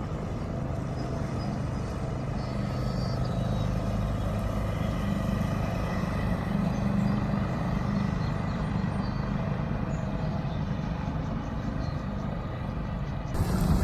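Yamaha 4 hp outboard motor running steadily at speed, pushing a small dinghy across the water.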